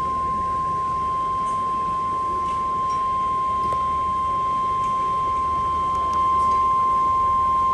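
NOAA Weather Radio 1050 Hz warning alarm tone: one steady, unbroken beep lasting about eight seconds, growing slightly louder about six seconds in. It signals that a warning broadcast is about to follow.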